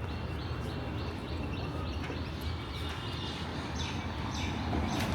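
A small bird chirping in a quick series, about three high chirps a second, pausing and starting again near the end, over a steady low hum of street traffic.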